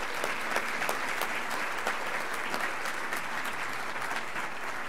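Audience applauding: many hands clapping at once in a steady, dense round of applause.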